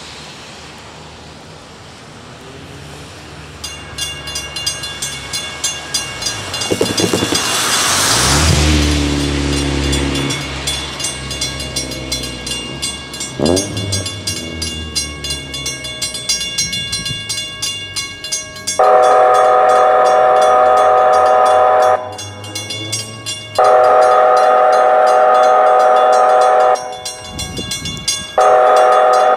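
Grade-crossing mechanical bells start ringing rapidly a few seconds in, and a vehicle passes on the wet road. Later a K5LA wayside horn at the crossing sounds two long blasts and then a short one, the start of its warning pattern for an approaching train.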